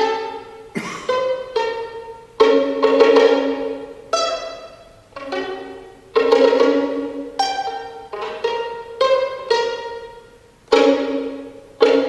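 Solo violin played mostly pizzicato: about a dozen plucked notes and chords at uneven intervals, each ringing out and fading. A few of the chords are louder and held longer.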